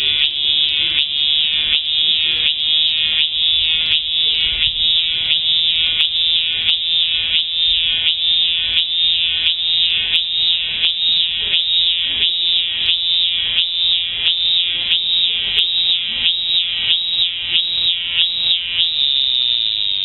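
Japanese cicada singing, a loud shrill buzz that pulses about twice a second and settles into a steady buzz near the end.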